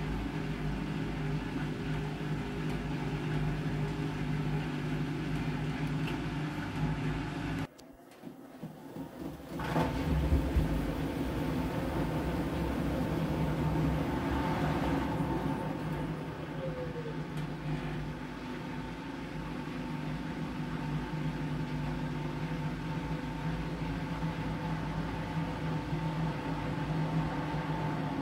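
Whirlpool FreshCare+ front-loading washing machine running mid-cycle, with a steady motor and drum hum. About eight seconds in the sound cuts out sharply, builds back over about two seconds and resumes at full strength.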